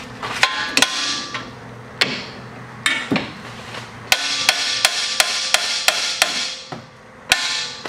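Hammer blows on a BMW E36 front steering knuckle to knock the wheel hub loose: about a dozen sharp, ringing metal strikes, a few spaced apart at first, then a quicker run of about three a second, and one last blow near the end.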